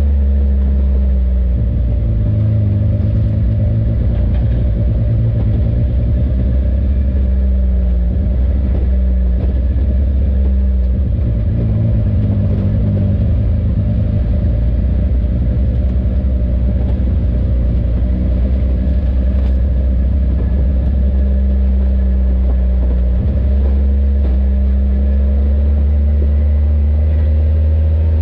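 Side-by-side UTV engine running as it drives along a dirt trail, a steady low drone whose pitch shifts a few times as the throttle changes.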